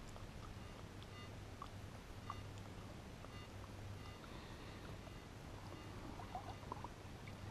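Garrett AT-series metal detector giving a few faint short beeps as its coil is swept back over a dig hole under the water, over a low steady hum. The signal comes through erratic and jumpy rather than as one solid tone.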